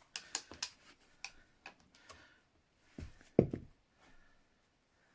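Bolt cutters clamped on a Master Lock D-lock's shackle: a run of sharp metallic clicks, then two heavier clunks about three seconds in, as the jaws fail to cut through the hardened shackle.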